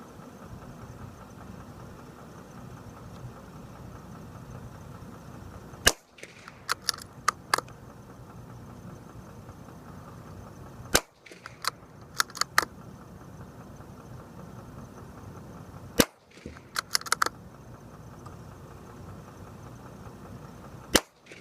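Savage Mark II bolt-action .22 rifle fired four times, about five seconds apart, each sharp crack followed by a quick run of clicks as the bolt is worked to chamber the next round.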